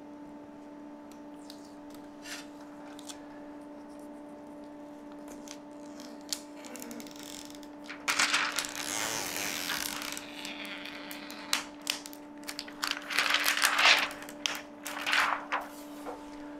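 Protective plastic film being peeled off a flat-screen TV's screen, in several uneven noisy bursts starting about halfway through, over a steady low hum.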